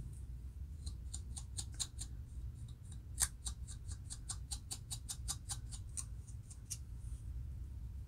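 Fine-toothed comb scratching a dry, flaky scalp between locs to lift dandruff: a run of quick, sharp scrapes at about four a second, the loudest about three seconds in, stopping near the end.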